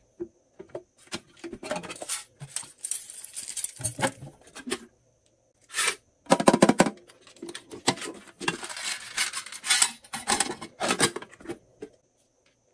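Glossy slime being mixed and squeezed by hand, making dense sticky clicks and crackles in bursts, with a short pause about five seconds in.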